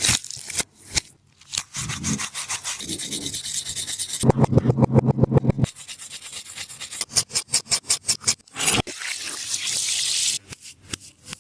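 Taba squishy toy squeezed and rubbed in the hands, giving crinkly crackling and scraping. A fast run of crackles comes about four seconds in, and a steadier rubbing hiss comes near the end.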